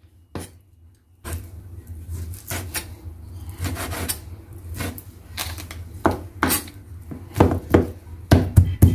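Cleaver cutting raw beef on a wooden cutting board. Scattered knife strikes at first, then a rapid, steady run of chops, about four a second, over the last second and a half.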